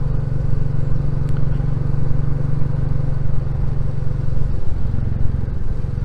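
Royal Enfield Classic 350's single-cylinder engine running steadily under way, its exhaust note dropping lower about four and a half seconds in.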